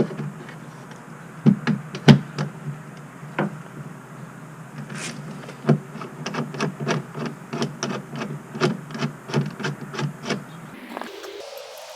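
Irregular sharp clicks and knocks of metal hand tools working on a truck door's mirror-mount bracket, with a quicker run of about two to three clicks a second in the second half.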